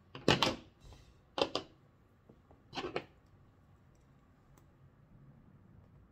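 Steel suturing instruments (scissors, forceps, needle driver) clattering as they are picked up and set aside on the table: three short clatters about a second apart in the first three seconds, then only faint handling.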